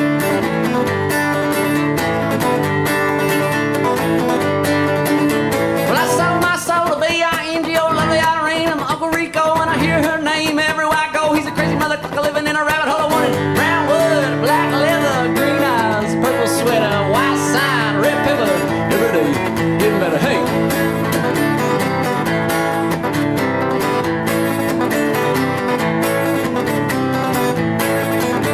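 Acoustic guitar strummed steadily in a country-folk song played live. From about six seconds in, a wordless vocal melody with vibrato rides over the strumming for several seconds.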